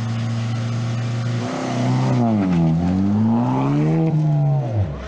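Suzuki Swift rally car's engine held at steady revs on the start line, then launching about a second and a half in. Its engine note climbs and falls twice as it pulls away, dropping sharply near the end.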